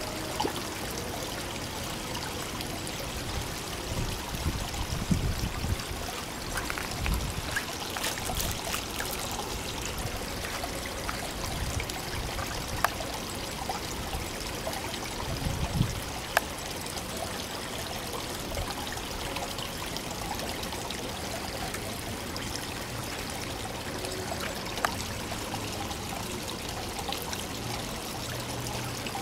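Water pouring and trickling steadily into a garden koi pond, with a few brief sharp clicks over it.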